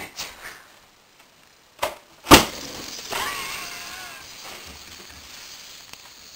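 A rubber party balloon bursting with a single sharp bang about two seconds in, with a fainter click half a second before it.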